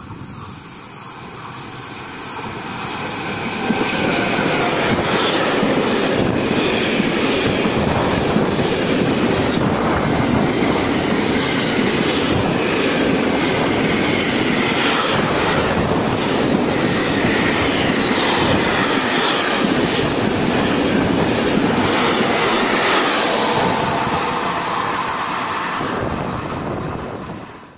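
Intermodal freight train hauled by electric locomotives passing close by at speed. The wheel-on-rail noise and clatter of the container wagons builds over the first few seconds as the train arrives, stays loud and steady, then fades as the last wagons go by and cuts off near the end.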